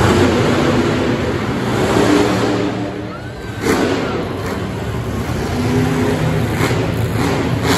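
Monster truck engine revving and running as the truck drives and lifts its front wheels, with a sharp thud about halfway through.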